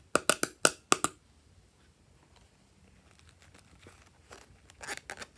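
Metal spatula scraping pressed eyeshadow out of the pans of a plastic palette: about six quick, sharp scrapes in the first second. A softer run of rustling follows near the end.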